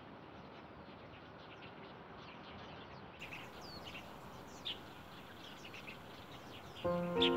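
Birds chirping: many short, high chirps scattered over a faint steady outdoor hiss. Background music comes in near the end.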